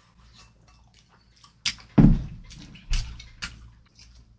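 Close-miked eating sounds: soft wet chewing and mouth noises, with a few louder wet smacks or gulps about two and three seconds in.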